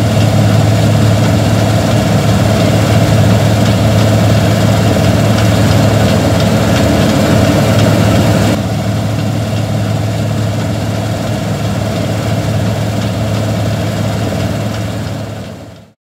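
Claas Lexion 450 combine harvester running steadily while harvesting wheat: a constant low diesel engine hum with machinery noise over it. The sound turns duller about eight and a half seconds in and fades out at the very end.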